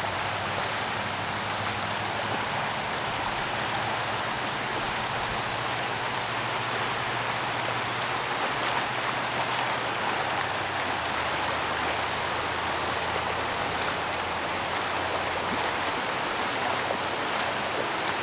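Floodwater rushing across a dirt road and spilling over its edge in white-water rapids: a steady, even rush of water. A faint low steady hum runs underneath.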